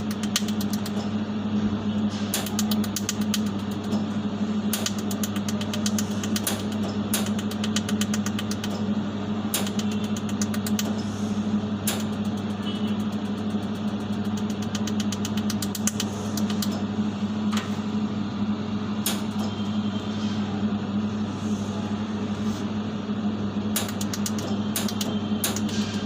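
Jewellery laser welding machine running with a steady low electrical hum, its laser firing pulses heard as runs of sharp clicks that come in bursts every few seconds.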